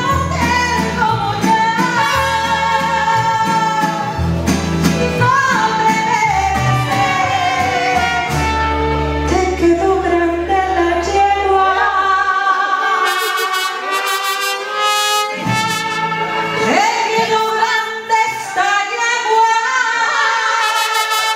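A woman singing with a live mariachi band of violins, trumpets, guitarrón, vihuela and guitars, heard in a large room. The deep bass part drops out a little over halfway through, leaving voice, strings and brass.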